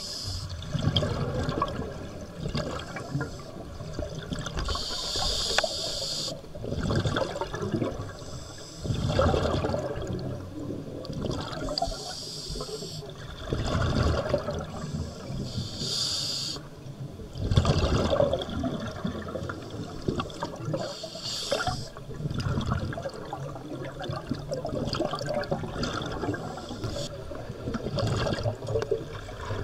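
A scuba diver breathing through a demand regulator, heard underwater: short hissing inhalations every few seconds, each followed by a longer gurgling rush of exhaled bubbles.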